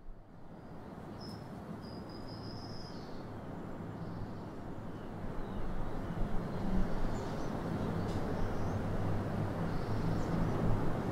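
Ocean surf washing against a rocky shore: a steady rushing that fades up from quiet at the start and grows gradually louder.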